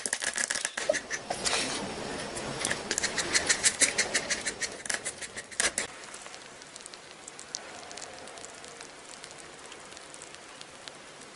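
Quick clicking and tapping of a small puppy's claws on a glass tabletop as it paws at it, many sharp taps in uneven runs. About six seconds in the tapping stops, leaving a quieter hiss with a few faint clicks.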